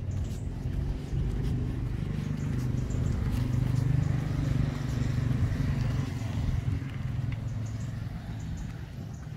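A motor vehicle passing by, its low engine hum swelling to a peak about four seconds in and then fading away.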